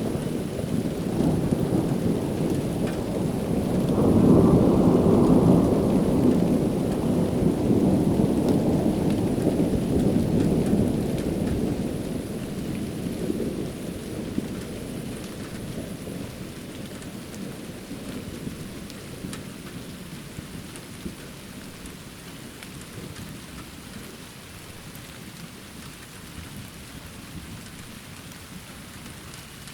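Rain falling steadily, with a long roll of thunder that swells about four seconds in and dies away over the following ten seconds or so, leaving the rain alone.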